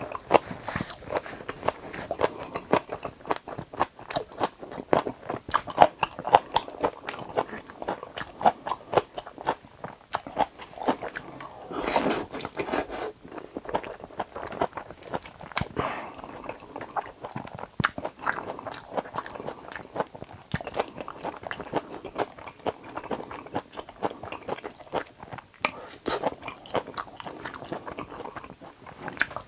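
Close-miked chewing of a mouthful of Chapagetti black-bean instant noodles, wet mouth sounds with many small sharp clicks. A brief airy sound comes about twelve seconds in.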